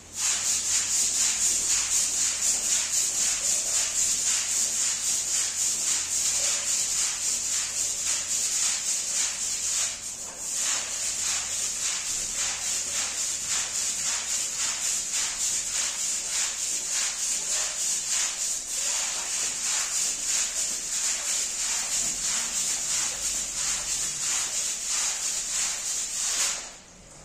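Brush scrubbing a rug in quick, rhythmic back-and-forth strokes, a hissing scrape about three to four strokes a second. It breaks off briefly about ten seconds in and again near the end.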